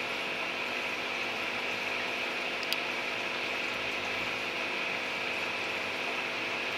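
Steady hum and water hiss of an aquarium's pump and filter running, with one light click about three seconds in.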